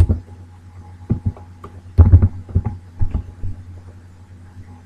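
A few scattered computer keyboard keystrokes, with a quick cluster of taps about two seconds in, over a steady low electrical hum.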